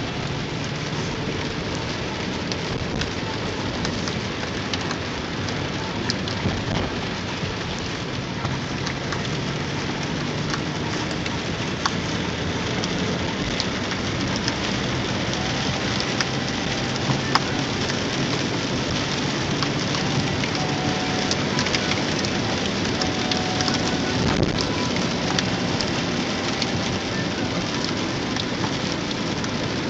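Heavy rain falling on a car's roof and windshield, heard from inside the moving car: a dense, steady hiss scattered with sharp ticks of single drops, with tyres on the wet road underneath.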